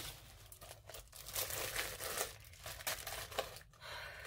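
Packaging crinkling and rustling in irregular bursts as it is handled.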